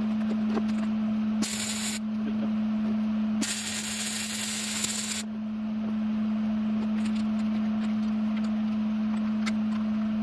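Electric arc welding on a steel truck frame rail: a steady buzzing hiss, briefly louder and brighter twice in the first five seconds.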